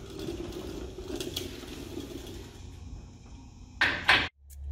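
Garage work under a Jeep Gladiator: a faint steady rumble of a mechanic's creeper rolling on the floor and light mechanical clicks of a ratchet, then two sharp knocks about four seconds in. Right at the end the truck's engine is idling with a low steady hum.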